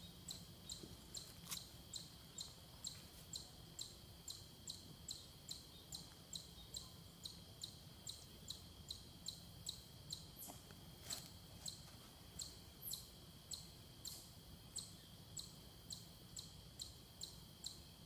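An insect chirping at a steady rhythm, a little more than two high chirps a second, over a faint steady high trill. A couple of faint clicks come in the middle.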